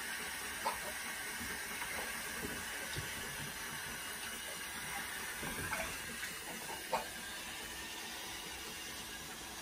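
Handheld shower spraying a steady stream of water onto a malamute's thick wet coat in a bathtub, with a couple of brief knocks.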